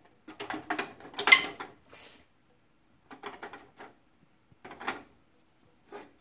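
Glass canning jars clinking and knocking against each other and the aluminium pot of a Presto 23-quart pressure canner as they are shifted into place. The knocks come in several short clattering bursts, the loudest about a second in.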